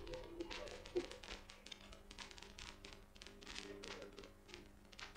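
Computer keyboard and mouse clicking: a quick, irregular run of faint clicks over a low steady hum.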